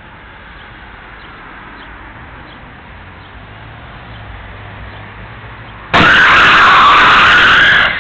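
Car engine approaching under faint road noise, then about six seconds in a sudden, very loud car crash: the T-bone collision of a car running a stop sign, the noise held for nearly two seconds before it drops away.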